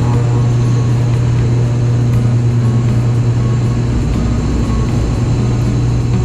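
Steady, loud low drone of an airliner in flight, heard from inside the cabin.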